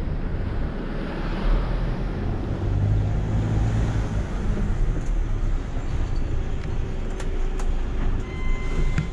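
Heavy truck's diesel engine running at low speed, heard from inside the cab as the truck creeps and turns, with the engine note briefly stronger about three seconds in and a few light clicks near the end.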